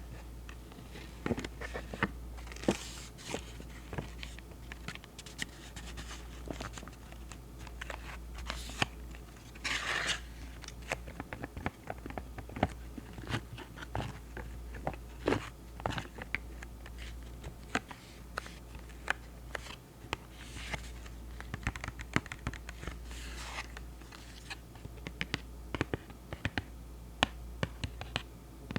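Close-miked ASMR handling of rubber Pentel eraser caps: irregular small clicks and taps, with a few brief scratchy rubs.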